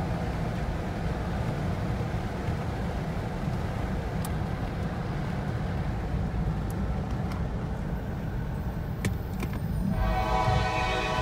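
Road noise inside a moving car's cabin, a steady low rumble. About ten seconds in, a diesel locomotive's air horn starts sounding a chord of several notes; it is CSX CW44AH 5110's Nathan K5LA five-chime horn.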